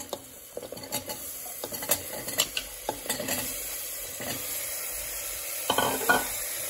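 Cubed raw potatoes tipped into a pressure cooker of hot tomato-spice masala cooking in ghee: scattered knocks as the pieces hit the pot and each other, and a couple of louder knocks near the end. A frying sizzle grows from about halfway.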